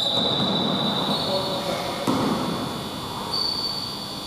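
Indoor basketball game ambience on a gym court: players' voices and movement, with scattered knocks and a steady high-pitched tone.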